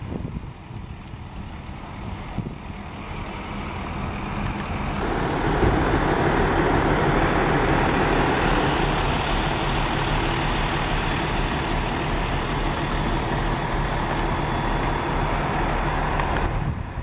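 Steady low hum of an idling vehicle engine with road traffic noise, which swells from about four seconds in and stays loud.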